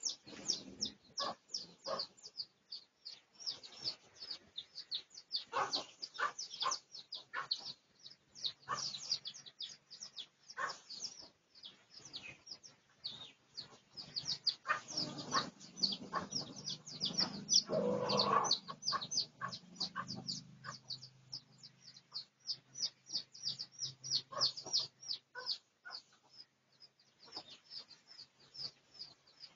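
Dense, rapid, high-pitched chirping of small birds throughout, with a lower, louder junglefowl call about eighteen seconds in.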